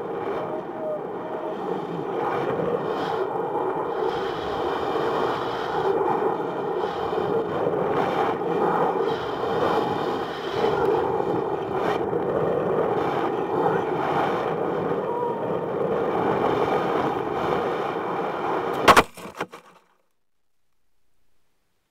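Steady rushing air noise on the microphone of a balloon payload camera as it descends under its parachute. Near the end there is one sharp, loud impact as the payload hits the ground, then a couple of short knocks, and the sound cuts off.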